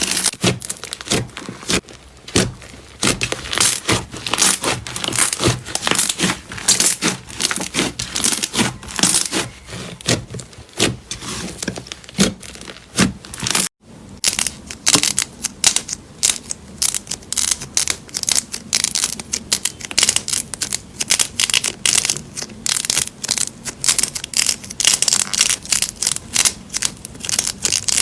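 Slime being squeezed and pressed by hand, giving dense, rapid crackling, popping and crunching. There is a momentary drop-out about halfway through.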